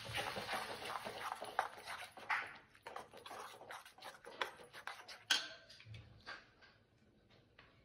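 Metal ladle scraping and tapping against a metal kadai while tomato paste is stirred into fried onions: a busy run of quick scrapes, one sharper knock about five seconds in, then a few lighter taps.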